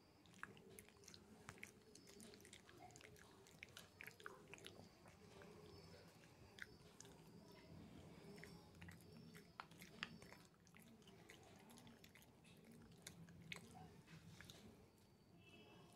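Shih Tzu puppy gnawing a chew stick: faint, irregular clicks and crunches of teeth working the stick.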